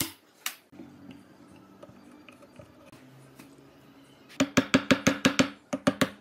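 Two sharp snaps as nail heads are nipped off with cutters, then, about four seconds in, a fast run of hammer taps, several a second, on a pine block, driving it down onto headless nail pins to join it to the piece below.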